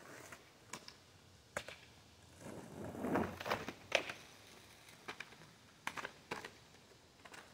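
Skateboard on an asphalt street: a scattering of sharp clacks and knocks from the board and wheels, with a short rolling rumble about three seconds in.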